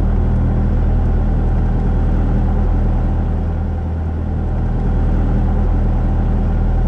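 A light aircraft's piston engine and propeller droning steadily, a low, even hum of several tones.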